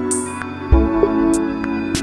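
Background music: calm new-age track with sustained pad chords, a soft bass beat about once a second, and light percussion ticks.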